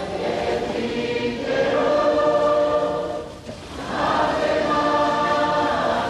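Choral background music: voices singing long held chords, which dip briefly about three and a half seconds in and then swell again.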